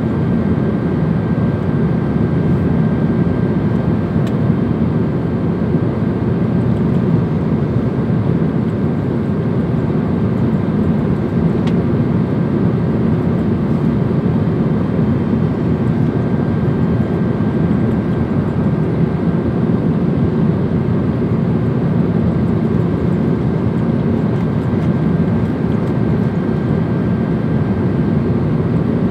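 Steady airliner cabin noise in flight: an even, low rush of engine and airflow noise with a thin steady tone above it.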